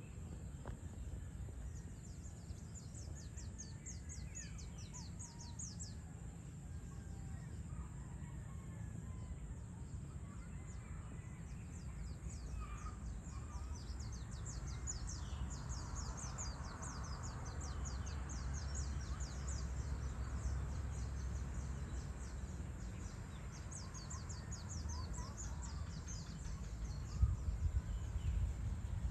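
Evening outdoor ambience: a steady low rumble under fast, high chirping, with scattered bird calls.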